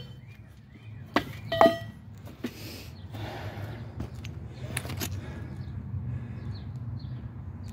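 Cut pieces of scrap steel clinking and knocking a few times as they are handled, with two sharp metallic clinks about a second in, one of which rings briefly, then a few lighter knocks.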